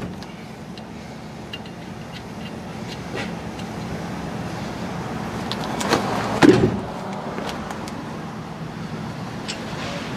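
A pickup truck running on the road, heard from inside the cab as a steady hum, with a loud thud about six and a half seconds in.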